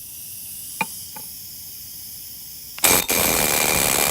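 A faint hiss with two light clicks about a second in, then a pneumatic air hammer starts nearly three seconds in and runs loud and continuous, hammering a worn ball joint out of the A-arm.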